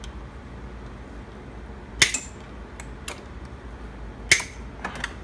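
Side cutters snipping through the tails of heavy 8-gauge wires: two sharp snaps, about two seconds in and again two seconds later, with a few lighter metal clicks between and after.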